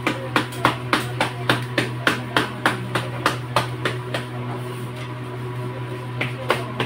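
Hands patting bhakri dough flat, a steady rhythm of slaps about three to four a second that pauses about four seconds in and picks up again briefly near the end. A steady low hum runs underneath.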